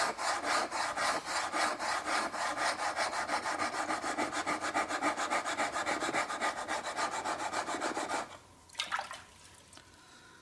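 A plane iron's secondary bevel being honed on a diamond sharpening plate: quick, even back-and-forth strokes, about four to five a second, with the steel rasping on the plate. The strokes stop about eight seconds in, followed by one brief scrape.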